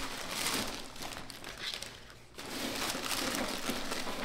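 Parchment paper crinkling and rustling as it is crumpled and folded by hand, in two spells with a short lull about two seconds in.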